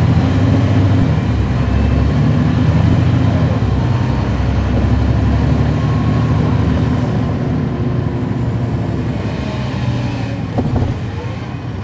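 Caterpillar C13 diesel engine of a NABI 416.15 transit bus running under load, heard from inside the bus. It eases off and gets quieter over the last few seconds, with one sharp click near the end.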